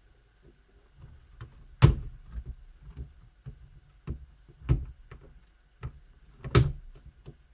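Sharp plastic clicks and knocks from working on a laptop's insides: a ribbon-cable connector being unclipped and the plastic top cover being handled. The loudest knocks come about two seconds in and again near the end, with small ticks between.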